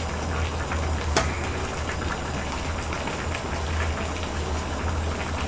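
Aged-kimchi pork-bone stew (gamjatang) boiling in a wide pot on a portable gas burner: a steady bubbling crackle, with a sharp utensil clink about a second in.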